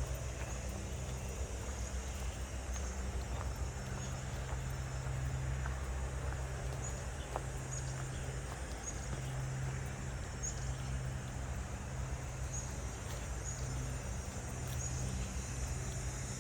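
Insects trilling steadily in a high, even chorus with faint repeated chirps, over a low steady rumble like distant traffic.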